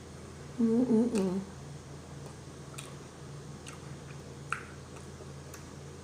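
A person eating: a short hummed "mmm" about a second in, then a few faint smacks and clicks of chewing spread through the rest.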